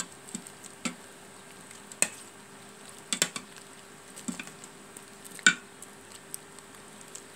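Metal ladle stirring a thick beef stew in a stainless steel Instant Pot inner pot, knocking against the pot with scattered clinks, the loudest about five and a half seconds in.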